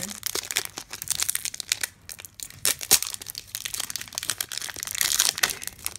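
Foil wrapper of a Pokémon Cosmic Eclipse booster pack being torn open and crinkled by hand: a dense run of sharp crackles, busiest about five seconds in.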